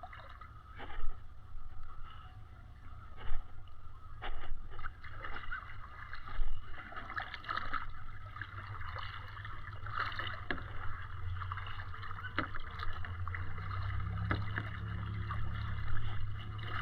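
Kayak being paddled on calm water: irregular paddle strokes splashing and dripping, over a steady low rumble that grows stronger in the second half.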